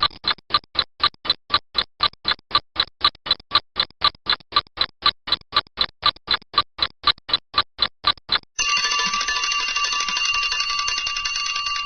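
Alarm clock sounding: short, evenly paced beeps about four a second, then, about eight and a half seconds in, a continuous ringing.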